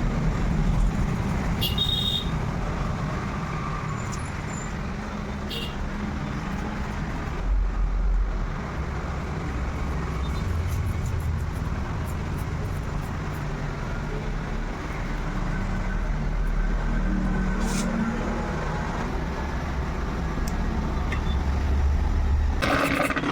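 Steady low rumble of motor-vehicle engines, swelling and easing a little, with a few faint clicks.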